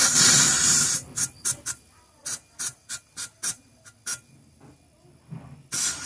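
Compressed air from a compressor forcing flush liquid out of a refrigerator evaporator's tubing into a plastic bottle. A loud hiss lasts about a second, then about ten short sputtering spurts follow as gas and liquid come out in slugs, and a new hiss starts near the end.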